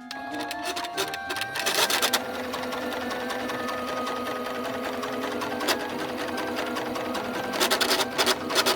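Jaguar CF 3104 household sewing machine running with a loud abnormal noise of rapid clicking, growing louder about two seconds in and again near the end, even with the bobbin removed. The owner takes the noise for a sign of oil starvation and a warning that the machine is about to seize.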